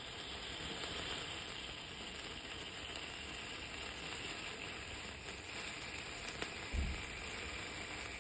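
Cake fountain candles (cold-fire sparkler fountains) burning with a steady hiss. There is a brief low thump near the end.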